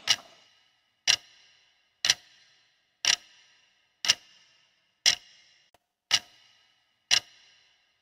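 A clock-like tick sound effect in a break in the backing music: a sharp tick with a short bright ring, repeating evenly about once a second, eight times.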